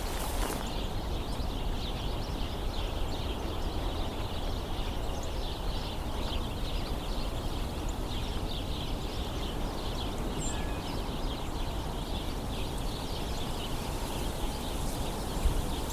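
Flock of house sparrows squabbling: a steady, dense chatter of many overlapping short chirps, over a low background rumble.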